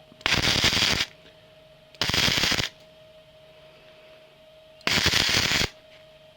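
Wire-feed (MIG) welder arcing in three short crackling bursts, each under a second, as a plug weld is patched up. A faint steady hum runs between the bursts.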